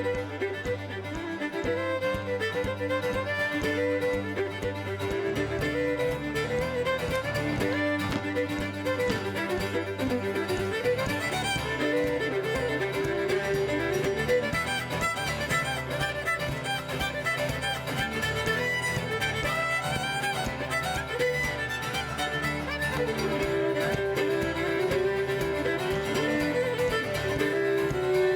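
Live string band playing a traditional fiddle tune for contra dancing: fiddle carrying the melody over guitar backing, continuous and even.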